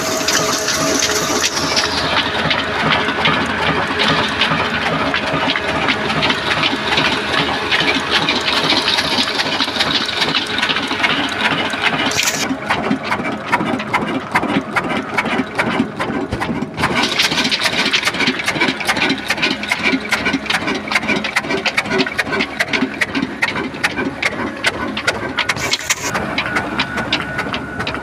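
Old stationary diesel engine running steadily under load as it drives a wheat flour mill, a fast, even knocking beat with a mechanical rattle.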